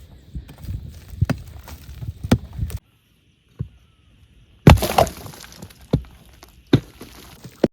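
Sticks and branches being snapped and knocked: irregular sharp cracks and knocks, broken by a brief silent gap, with the loudest crack just after the gap.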